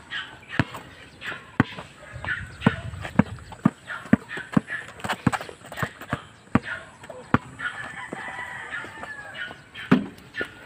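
Basketball dribbled on a concrete street: a string of sharp, irregular bounces. A rooster crows in the background, most clearly about eight seconds in.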